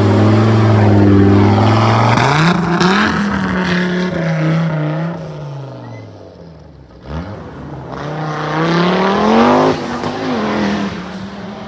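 Audi Sport Quattro S1 Group B rally car's turbocharged five-cylinder engine running hard: the revs hold high, fall away and fade about six seconds in, then climb steeply again to a loud peak and drop suddenly near the end.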